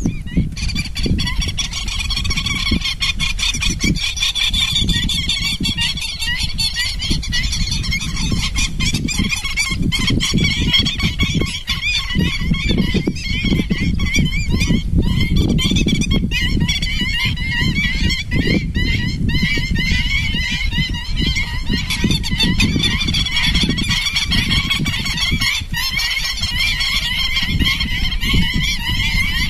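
A large flock of waterfowl calling continuously, many high, wavering calls overlapping one another, over a low rumble.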